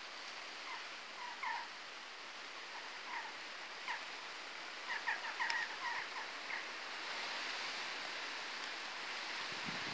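Short chirping bird calls, scattered and unevenly spaced, over a faint steady hiss of outdoor ambience.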